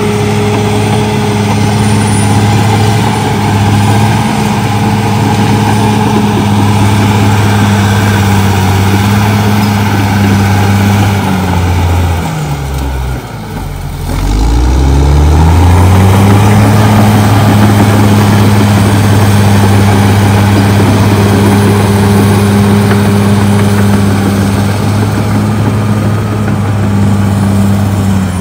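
CAT D6R XL bulldozer's diesel engine running steadily as it clears brush. Around the middle the engine note drops and then climbs back up over a few seconds.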